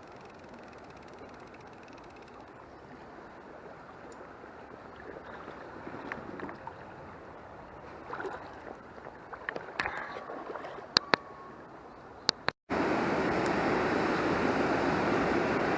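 Small stream flowing after heavy rain, a steady rush of water that is quiet at first with a few sharp clicks and knocks, then suddenly much louder and closer after a brief cut about two-thirds of the way in.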